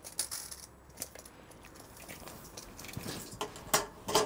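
Tape measure being handled and its blade pulled out across a tabletop: scattered small clicks and rustles, with two sharper clicks near the end.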